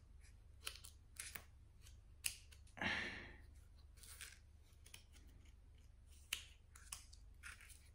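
Pokémon trading cards being handled: scattered light clicks and taps, with one brief sliding swish about three seconds in.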